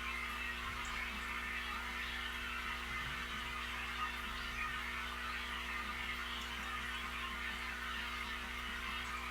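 Steady electrical hum from running aquarium equipment, with an even, fizzy hiss of moving water over it.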